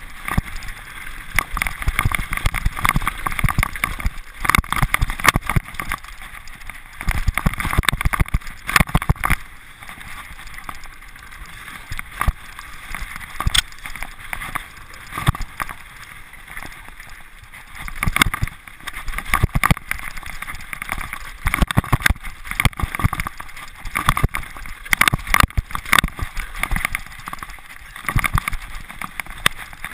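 Mountain bike descending a rocky trail: tyres crunching over loose stones, with rapid, irregular clattering and knocks from the frame, chain and suspension as it hits rocks, and wind rushing over the helmet-mounted microphone.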